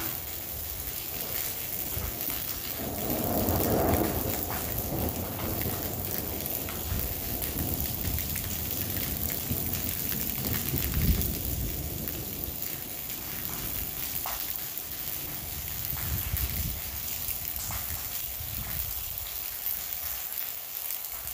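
Heavy rain pouring steadily during a thunderstorm, with a swell of thunder rumbling about three to four seconds in.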